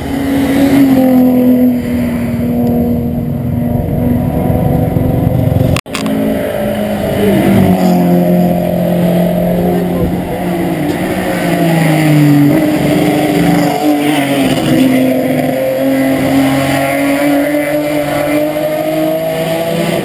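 Race car engines at high revs climbing past a hill climb course; the engine note glides and drops in steps, then climbs again. About six seconds in the sound breaks off abruptly and a second car's engine takes over.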